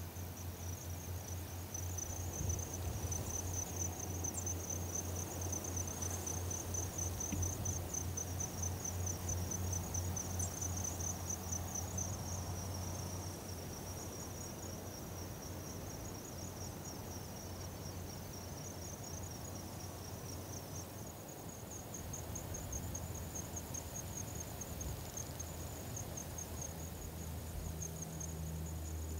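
Insects trilling steadily in grassland, a high, rapidly pulsing song whose pitch steps up slightly about two-thirds of the way through, over a low steady rumble of wind.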